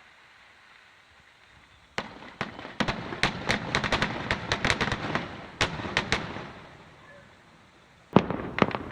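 Fireworks going off: after a short lull, a bang about two seconds in, then a rapid run of sharp crackling pops that fades away, and another burst of pops starts near the end.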